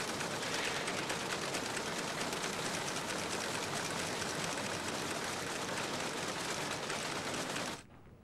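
Factory machinery running with a loud, fast, even clatter, which cuts off abruptly near the end.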